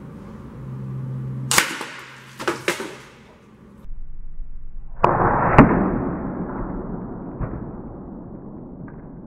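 A few sharp cracks, then a loud impact about five seconds in with a long tail that fades over several seconds: a .177 domed air-rifle pellet striking a row of water-filled aluminium drink cans, knocking them over and spraying water.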